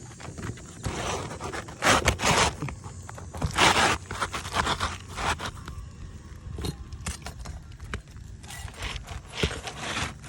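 Asphalt roofing shingle being slid and worked back into place, scraping roughly against the shingles around it and the felt underlayment in several irregular bursts, with a few sharp clicks. The felt underneath is tearing and ripping as the shingle goes back in.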